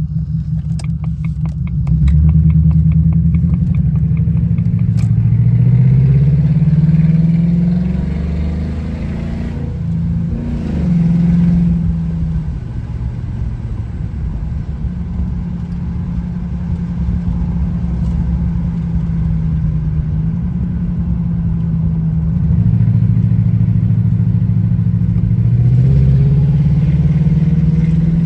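Supercharged V8 of a Jaguar XJR driving on the road, its note rising in pitch as the car pulls through the gears, levelling off, then rising again near the end, over road rumble. A quick run of ticks sounds in the first two seconds.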